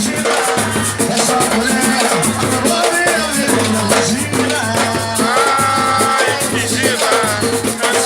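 Batuque-style percussion music: shakers and drums keep a steady beat, with a voice singing over them partway through.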